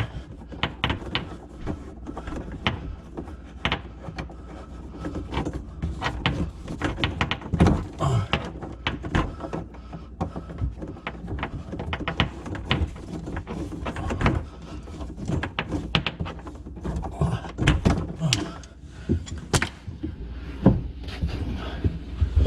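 Irregular clicks, knocks and rattles of sink drain pipes and fittings being handled and fitted under a kitchen sink, with a few louder knocks about a third of the way in, near the end, and at the very end.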